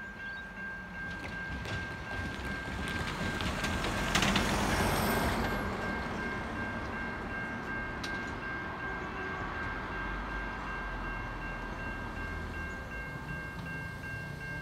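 Safetran Type 3 electronic level-crossing bell ringing steadily and rapidly, warning of an approaching train. A road vehicle passes by about four seconds in, the loudest moment.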